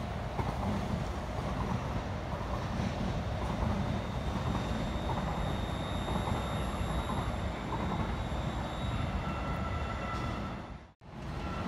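Light rail train running past below: a steady rumble of wheels on rail with faint high whining tones. The sound cuts off abruptly about a second before the end.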